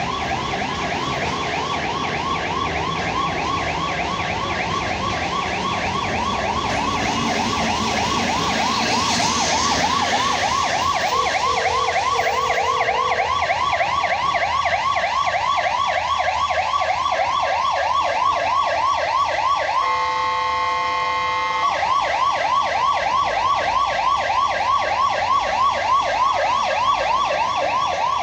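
Fire engine siren sounding a rapid yelp, its pitch sweeping up several times a second. About twenty seconds in, the yelp briefly gives way to a steady horn blast before resuming.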